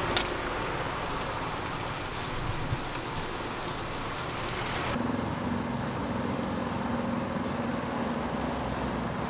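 Burger patties, eggs and buns sizzling on an oiled flat-top griddle, with a couple of short clicks. About halfway through it cuts off abruptly to a quieter steady outdoor background hum with a faint low tone.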